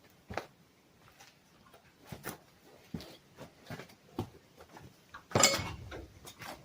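Small parts and packaging being handled and rummaged through on a parts cart: scattered light clicks and clinks, with a louder clatter about five and a half seconds in.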